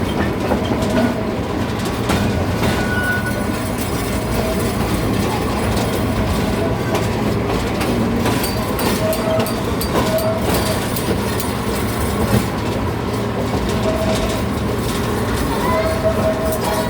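Moving passenger train heard from aboard a car: a steady rumble and clatter of wheels on the rails, with short squeals from the wheels every few seconds.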